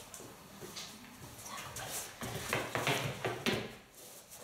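Dog's paws and claws tapping and scuffling on a wooden floor as it moves about in play, a quick run of taps about two to three and a half seconds in.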